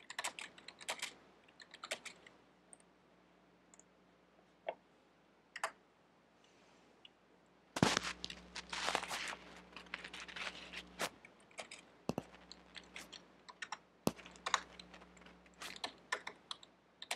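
Computer keyboard typing in irregular bursts of keystrokes. The densest run comes about eight to eleven seconds in, with sparse single key presses in between.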